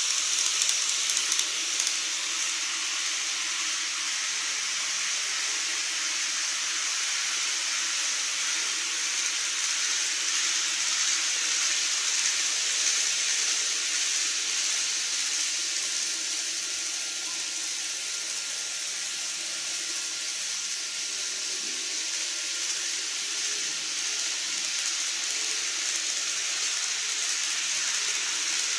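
The tail of a KATO N-gauge model train clattering over the rail joints across a plastic truss bridge, dying away about two seconds in, followed by a steady hiss.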